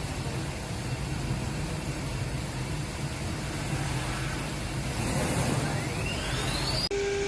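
CNC wood router running with a steady low hum and noise. Near the end a whine rises in pitch over about two seconds as the spindle speeds up, then the sound changes abruptly to a steady high spindle whine.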